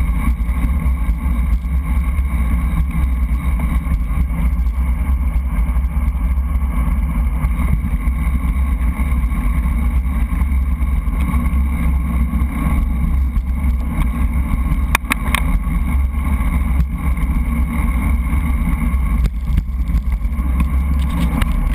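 Steady, loud wind and road rumble on a bicycle-mounted action camera as the road bike rolls along a paved path. A few sharp clicks come about two-thirds of the way through.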